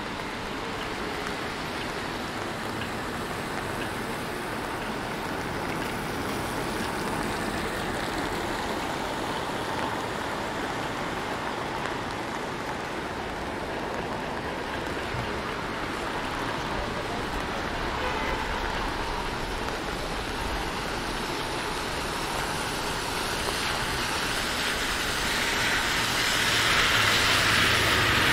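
Steady rain falling on the street, with a vehicle's tyres hissing on the wet road, growing louder near the end as it approaches.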